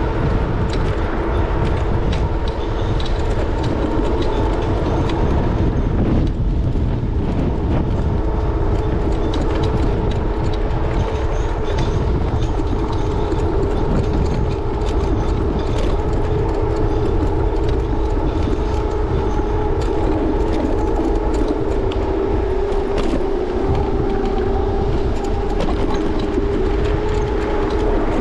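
Electric scooter riding along a street, picked up by a camera mounted on its handlebars: a steady whine over a constant low road rumble and wind noise.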